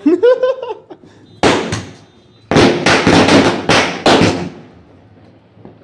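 Firecrackers bursting: one loud bang about a second and a half in, then a quick string of about six bangs over roughly two seconds.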